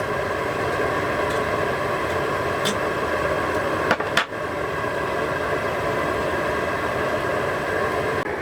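Portable gas burner under a rice pot running loudly, a steady, even rushing noise, with a couple of brief clicks about three and four seconds in.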